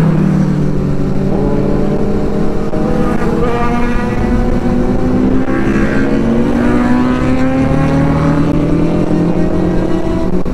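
Several motorcycle engines running at highway speed, their pitch slowly rising as the bikes accelerate, over wind rush.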